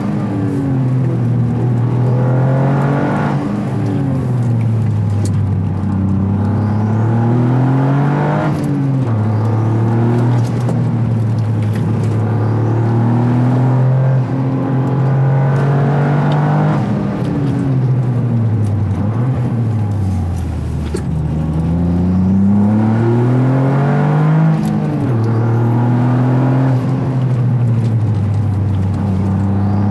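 Toyota GR Yaris turbocharged three-cylinder engine heard through its aftermarket intake airbox while driving, the revs climbing and dropping again and again through gear changes and lift-offs.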